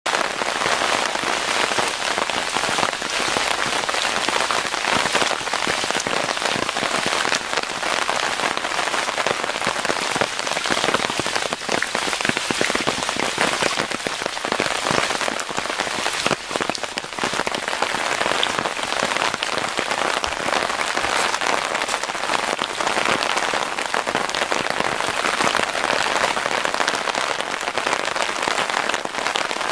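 Steady rain falling: an even hiss with many separate drop hits throughout.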